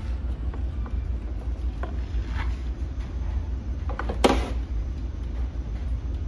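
Light clicks and rustling of insulated wires with metal ring terminals being handled, with one sharper knock about four seconds in, over a steady low hum.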